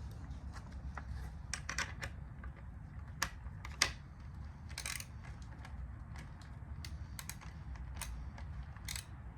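Scattered light clicks and small metallic rattles of screws and brackets being handled and fitted, with a few sharper clicks about three to five seconds in and again near the end, over a low steady hum.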